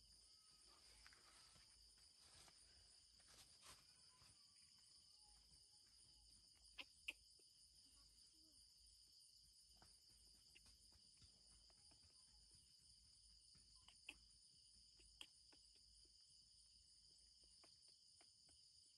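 Faint, steady chorus of night insects such as crickets, with a few brief sharp clicks, the loudest a pair about seven seconds in.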